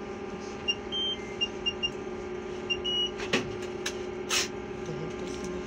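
Steady electrical hum of a trolleybus cab, with a run of short high electronic beeps from the card payment terminal on the dash, about seven in the first three seconds. A few sharp clicks and a short hiss follow.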